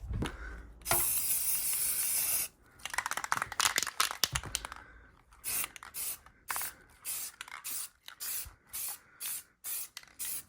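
Aerosol spray-paint can: one long spray about a second in, then a few seconds of rattling as the can is shaken, then a run of short spray bursts, about two a second.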